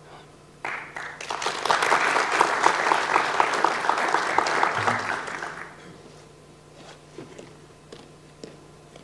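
Audience applauding: a burst of clapping that starts about half a second in, holds for about four seconds and dies away by about six seconds.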